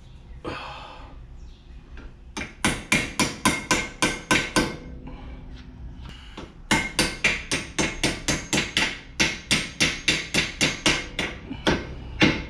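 Hammer tapping a brake pad retaining pin back through a front brake caliper against the new pad spring, until the pin goes through. Two runs of quick, sharp metal taps, about four a second, with a pause in the middle.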